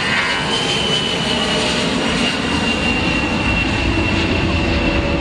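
Aircraft engine running loudly and steadily, with a high whine that slowly falls in pitch.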